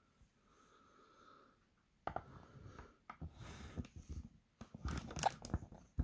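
Handling noise from a loose camera tripod being adjusted and straightened: irregular clicks, knocks and rustling that start about two seconds in.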